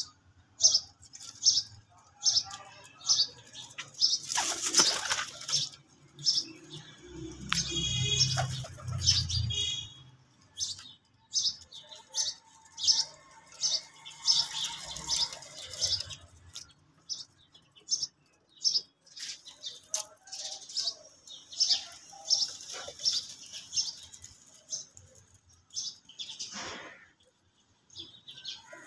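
Small birds chirping in a run of short high notes, at times about two a second, with bursts of pigeons' wings flapping in the loft.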